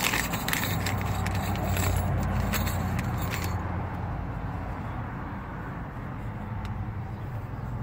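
Small connector fittings rattling and clicking as they are handled, for about three and a half seconds, then stopping, over a steady low rumble.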